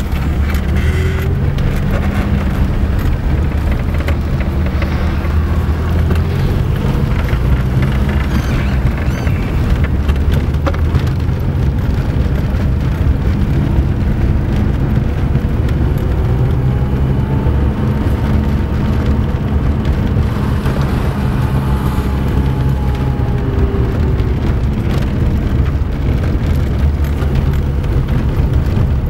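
Car driving over a cracked, potholed asphalt road, heard from inside the cabin: a steady low engine and tyre rumble with frequent knocks and rattles as the wheels hit the cracks and patches.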